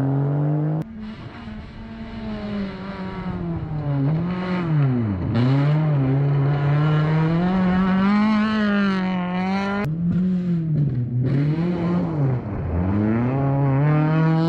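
Rally car engine revving hard on a gravel stage, its pitch climbing and then dipping sharply at gear changes or lifts off the throttle, several times over. The sound jumps abruptly about a second in and again about two-thirds of the way through.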